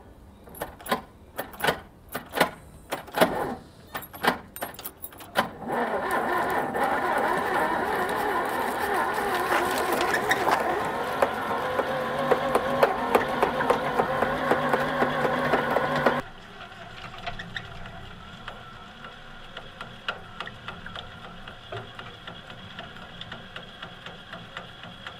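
A run of separate clicks and knocks, then the starter motor cranking the cola-filled engine steadily for about ten seconds: it turns over but does not fire. The cranking cuts off suddenly, leaving only a faint background.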